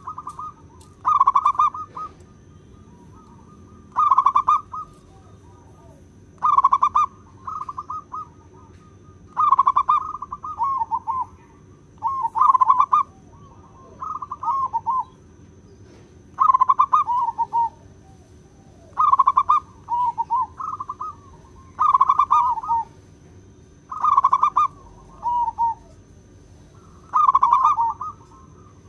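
Zebra dove cooing: a run of short, trilled coo phrases that repeat every two to three seconds, some coming in quick pairs.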